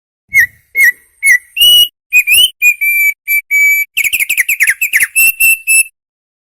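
Opior, a white-eye songbird, singing a loud whistled song in full voice. It opens with three separate clear notes, then quicker notes, and about four seconds in a rapid run of falling whistles.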